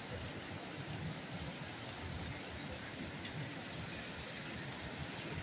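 Salmon fillets sizzling in butter in a frying pan, a steady hiss.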